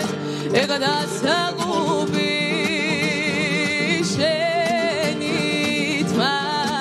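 A song: a woman singing long held notes with wide vibrato and quick ornamented runs between them, over instrumental backing.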